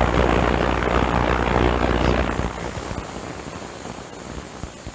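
Ultrasonic carburetor cleaner running with a heated bath: a loud buzzing hum under a dense crackling hiss, easing to a quieter steady hiss a little over two seconds in.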